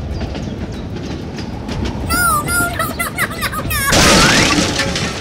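Toy steam locomotive running along its track with a steady low rumble. About two seconds in come a few warbling, pitch-bending tones, then a loud sudden burst of hissing steam about four seconds in that fades over a second, with a rising whistle inside it.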